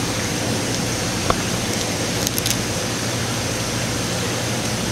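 Steady room hiss with a low hum, and a few small clicks from handling the plastic chemical light stick and fitting it onto a fishing rod tip, the sharpest about a second in, then two more close together a moment later.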